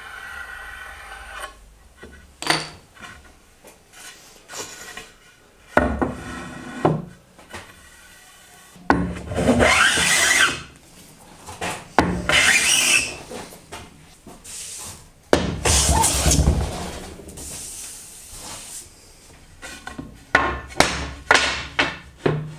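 Metal bench plane pushed along a wooden board in several long strokes of about a second each, each a rasping shear as a shaving comes off, with lighter scrapes between. A few quick knocks near the end.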